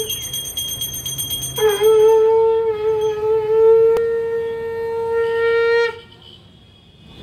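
Conch shell (shankha) blown for a puja in long, steady, horn-like notes. One note ends as the sound begins. A second starts under two seconds in with a brief dip in pitch and is held for about four seconds before stopping. Another blast begins at the very end.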